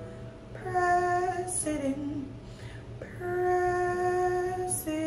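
A woman singing, holding two long notes, the second longer than the first.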